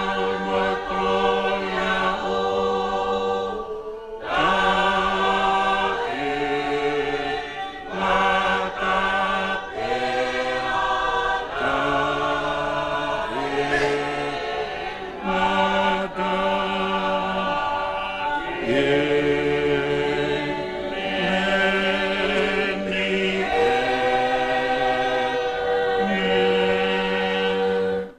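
A group of voices singing a hymn together, in slow phrases of long held notes with short breaks between them.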